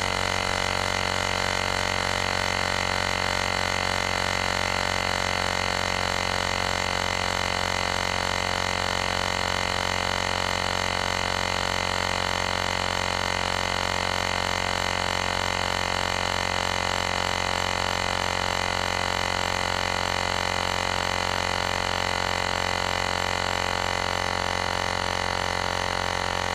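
Lexin P5 portable tire inflator's compressor running at a steady, even drone, pumping a motorcycle front tire up from 31 toward its preset 36 PSI.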